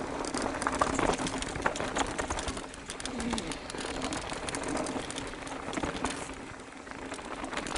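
Mountain bike riding down rough, rocky singletrack. The frame and chain rattle, with many sharp knocks from the ground, and the tyres run on dirt over a steady low hum.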